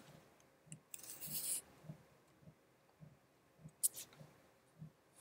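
Quiet room with a single sharp computer-mouse click a little under four seconds in, a short soft hiss about a second in, and faint low thumps repeating about every 0.6 s.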